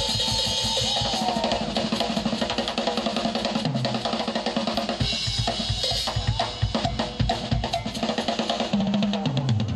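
Drum kit played in a live solo: fast strokes on snare, toms and bass drum under cymbals. Runs step down the toms from high to low about four seconds in and again near the end.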